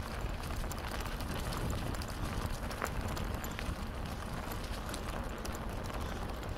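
Riding a bicycle along an unpaved track: a steady rumble of wind on the microphone, with scattered crackles and ticks from the tyres on the rough surface.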